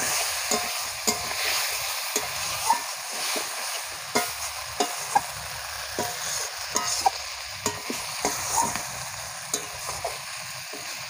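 Metal spatula scraping and clinking against a metal kadai as potato chunks are stirred and sautéed in spiced oil, over a steady frying sizzle. The sharp scrapes come irregularly, about one or two a second.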